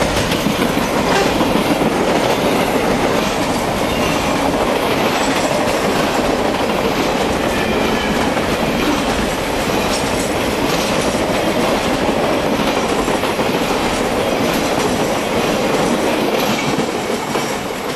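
Triple Crown RoadRailer intermodal trailers rolling past on their rail bogies: a steady rumble of wheels on rail, with scattered clicks as wheels pass over the track.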